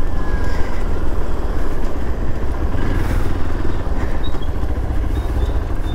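Motorcycle running, recorded by a GoPro on the bike with a steady, heavy low wind rumble over the microphone.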